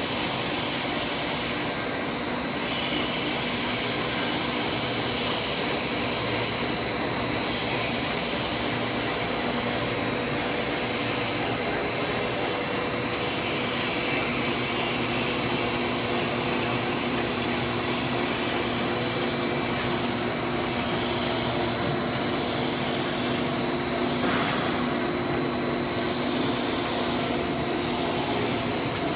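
PVC foamed board extrusion line running: a steady industrial drone of drive motors and blowers, with a low hum and a steady high whine.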